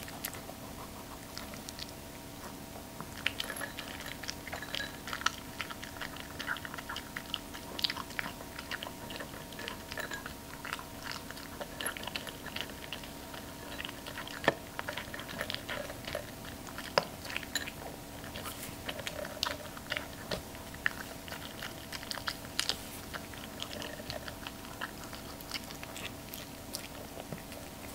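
Long-coat Chihuahua eating dry kibble from a raised bowl: irregular small crunches and crisp clicks of chewing, with kibble rattling against the bowl.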